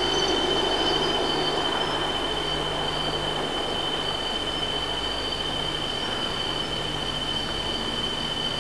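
Steady evening insect chorus: one constant high-pitched whine over an even hiss.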